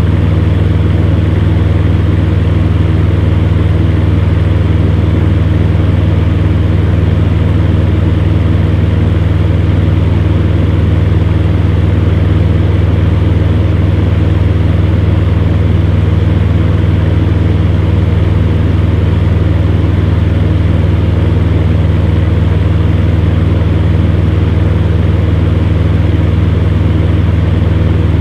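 Electric fan heater running steadily: a low motor hum under the even rush of air from its fan.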